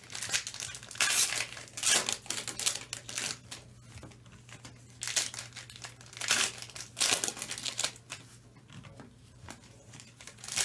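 Foil trading-card pack wrappers (Topps Chrome Sapphire Edition) crinkling and tearing as packs are ripped open and the cards pulled out, in irregular short bursts.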